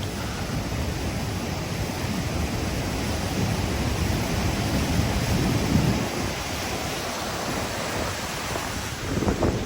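Steady rush of a flooded creek pouring through a rock channel, with wind buffeting the microphone in gusts.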